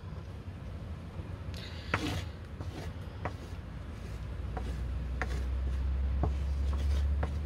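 Metal spoon spreading flour over a plastic chopping board: scattered light taps and scrapes. A low rumble builds underneath from about halfway.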